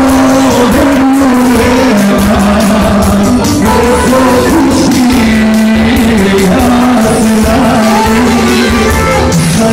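A man singing into a handheld microphone over loud, continuous amplified music, the melody carried unbroken through the whole stretch.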